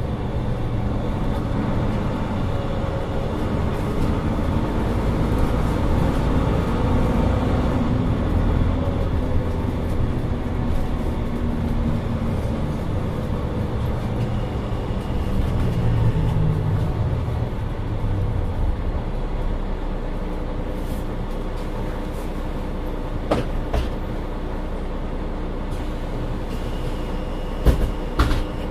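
Mercedes-Benz Citaro 2 city bus's diesel engine running under way. The engine note climbs over the first several seconds, falls away about halfway through as the bus slows, then settles into lower, steadier running. A few sharp clicks come near the end.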